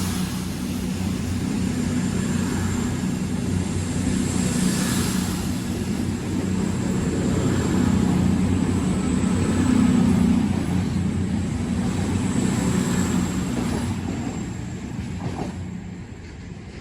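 Passenger train running at a station, a steady low rumble that swells, then fades away over the last few seconds.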